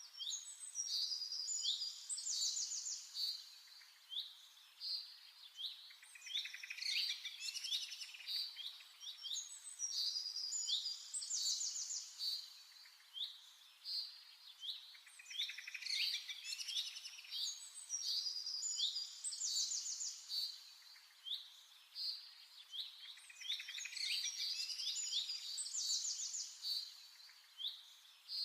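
Birds chirping and trilling in quick high-pitched phrases. A burst of song recurs roughly every eight seconds, with quieter single chirps between.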